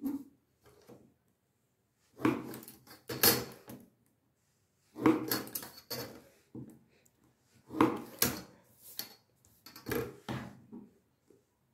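The back of a scissor blade scored along a steel ruler to crease card stock on a cutting mat, with the ruler and paper being shifted between strokes. It comes as about six short scraping bursts with silent gaps between them.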